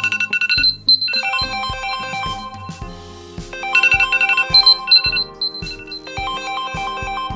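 Smartphone alarm tone ringing: a melodic electronic tune of short repeated notes over a steady low beat.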